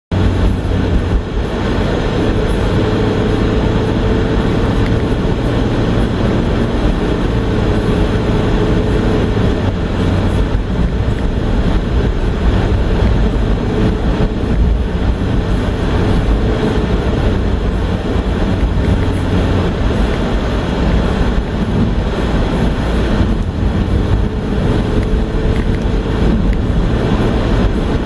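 Steady road noise inside a moving car: low tyre and engine rumble, with a faint whine that comes and goes.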